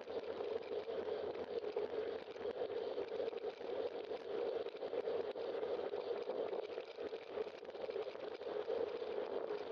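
Steady rush of wind and road noise on a bicycle-mounted camera while riding, with small rattling ticks from the bike and mount over the pavement.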